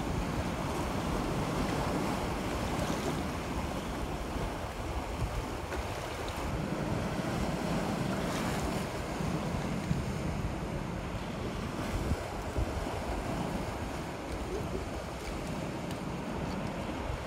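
Strong wind buffeting the microphone over waves washing on a rocky shore: a steady rushing noise.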